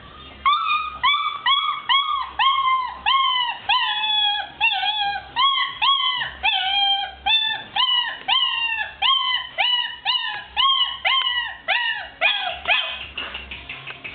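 A Tosa Inu puppy whining and yelping in a long, steady string of short high cries, each dropping in pitch, about two a second; the cries stop about a second before the end.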